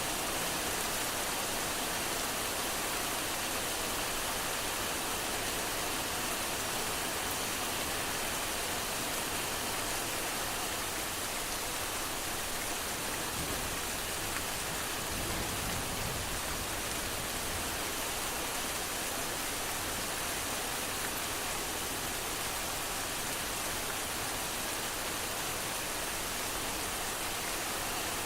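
Heavy rain falling in a steady, dense hiss, with a brief low rumble about fifteen seconds in.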